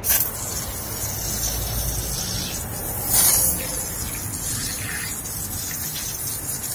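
Sonax 3-litre pump-up foam sprayer hissing steadily as its lance sprays snow foam onto a car wheel and tyre, briefly louder about three seconds in.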